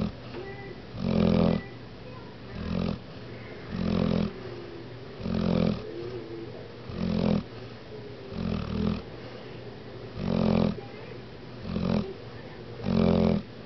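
A dog snoring in its sleep. The snores come in a steady rhythm, about one every second and a half, with quieter breathing between them.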